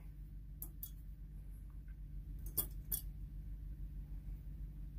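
Small metal spacers being dropped onto screws on a metal plate: a few light metallic clicks, in two pairs about two seconds apart.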